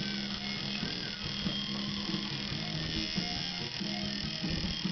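Coil tattoo machine running with a steady low buzz as the needle works into the skin of a finger.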